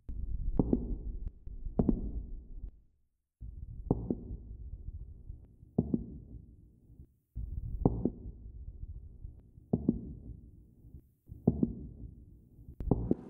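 Muffled heartbeat thuds, one every second or two, over a low rumble, as heard through a stethoscope; the sound cuts out briefly a few times.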